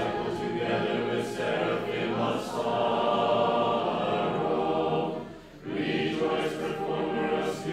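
Choir singing a slow Orthodox liturgical chant in sustained phrases, with a brief pause between phrases about five and a half seconds in.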